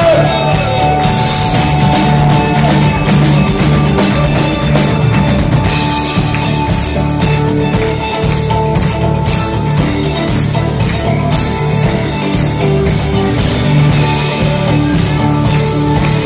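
Rock band playing live, loud and continuous: a drum kit with cymbals, electric guitars and bass.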